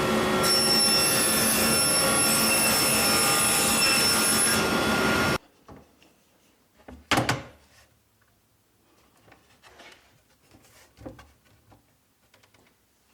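Power saw running steadily as a piece of plywood is cut down, cutting off suddenly about five seconds in. A sharp wooden knock follows about two seconds later, then a few faint handling knocks.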